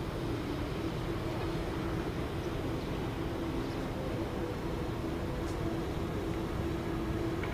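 Steady city background noise: a distant traffic rumble with a constant low mechanical hum running through it.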